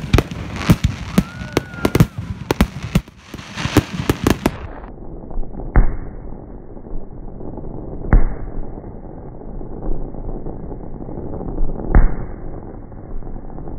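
Fireworks display: a rapid run of sharp bangs and crackling from bursting shells, with one brief whistle, for about the first five seconds. Then, more muffled, three single bangs a few seconds apart over a steady background hiss.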